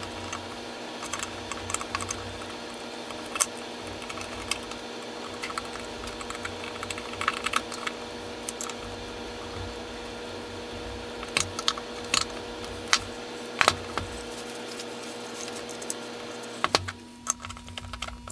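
Light clicks and taps of a screwdriver and small metal parts on a wooden-bodied transitional hand plane as it is put back together, a few knocks louder than the rest. Under them runs a steady hum that cuts off near the end.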